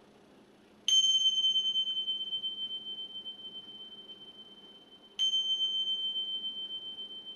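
Tingsha cymbals struck together twice, about four seconds apart, each strike a bright high ring that fades slowly; the chime marks the start of savasana.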